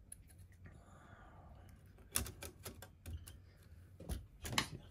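Light, irregular clicks and clinks of small metal parts and hand tools being handled and picked up, with a soft rustle early on; the loudest clicks come about four seconds in.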